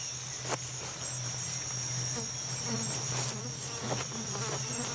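Rainforest insect chorus: a steady high-pitched trill with a low buzzing hum beneath it, and a few faint clicks.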